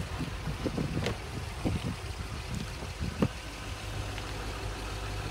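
Toyota Celsior's 4.3-litre V8, fitted with a Ganador muffler, idling with a low, steady hum. A couple of faint clicks come about one and three seconds in.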